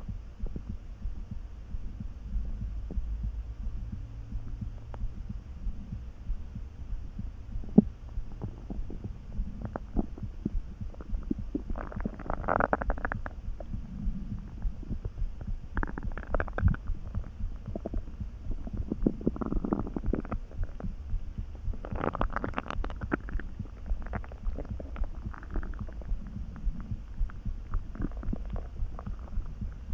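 Hungry human stomach gurgling and rumbling: an empty stomach churning calmly, with several gurgles, the strongest about 12 and 22 seconds in, over a steady low throbbing. A single sharp click about 8 seconds in.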